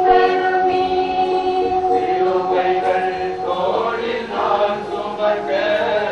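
A choir singing a Tamil church hymn with long held notes.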